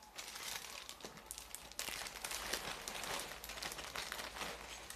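Clear plastic packaging bag crinkling as it is handled and opened to get parts out, a dense run of fine crackles that grows busier about two seconds in.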